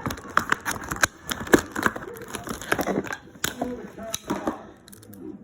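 Plastic packaging crinkling and clicking as a toy playset is unpacked by hand, with irregular sharp snaps and rustles that die down near the end.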